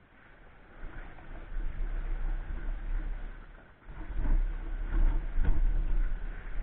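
Wind buffeting an outdoor microphone: an uneven low rumble that swells about a second in, drops away briefly near the middle, then returns louder.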